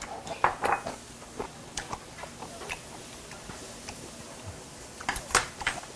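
Close-up wet mouth clicks and smacks of someone chewing raw beef, scattered through the stretch. A louder cluster of sharp clicks comes near the end.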